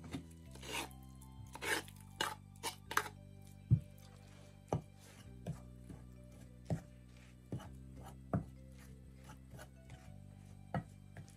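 A spoon scraping and knocking against a glass mixing bowl as boiled pumpkin is mashed into flour: a few scrapes early on, then sharp knocks about once a second. Soft background music runs underneath.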